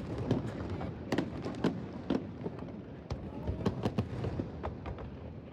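Fireworks going off in an irregular series of sharp bangs and cracks over a steady low background noise.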